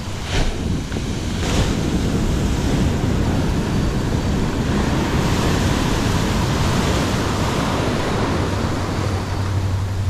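Ocean waves breaking in the shore break, with white water rushing and hissing up the sand. Two sharper splashes come in the first couple of seconds.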